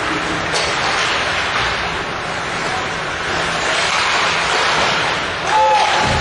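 Ice hockey game ambience in an arena: a steady noisy wash of skates on the ice, sticks and players' and spectators' voices. It gets suddenly louder near the end, with a short pitched sound.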